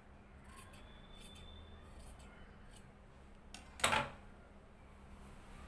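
Fabric scissors making a few soft snips as they trim the uneven hem edge of a light frock fabric, then one much louder sharp clack just before four seconds in as the scissors are put down on the sewing-machine table.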